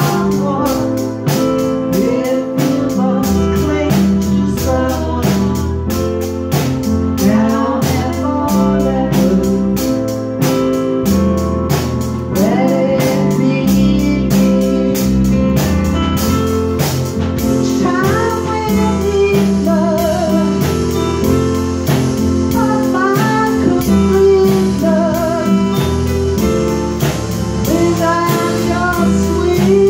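A small band playing live: electronic keyboards holding chords, a drum kit keeping a steady beat, and a woman singing over them, her voice most prominent in the second half.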